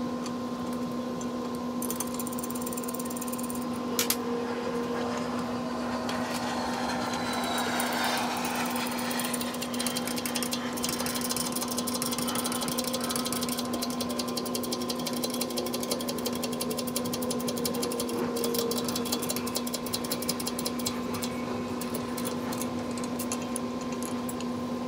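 A steady machine hum, constant in pitch, with a couple of sharp metal clicks early on and fine ticking later. Meanwhile a front wheel hub is being pressed out of its steering knuckle on a hand-pumped hydraulic shop press.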